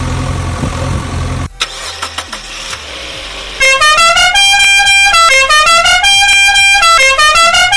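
A steady engine rumble that stops after about a second and a half, a few clicks, then a loud musical horn playing a short tune of stepped notes, heard twice over.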